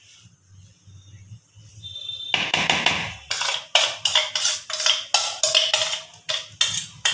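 A hand mixing wet flour-and-semolina batter in a plastic bowl. From about two seconds in comes a quick run of slaps and knocks of hand and batter against the bowl, roughly three a second.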